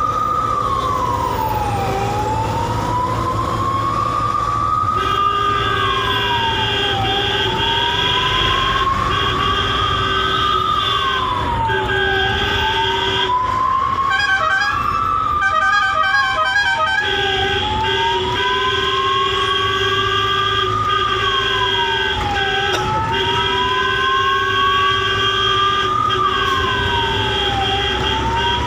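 Ambulance siren wailing, each cycle a slow rise then a quick drop, about every five seconds. About five seconds in, a second steady, higher tone joins and runs with short breaks. Around the middle a brief pulsing pattern takes its place, over a low rumble of road and engine.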